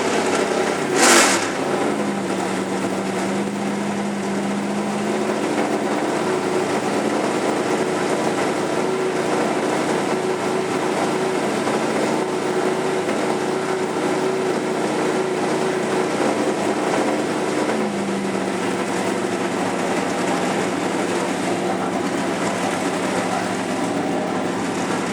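An engine running steadily, which sounds like an old air-cooled Volkswagen. Its pitch steps up about five seconds in and settles back down near the end, and there is a single sharp noise about a second in.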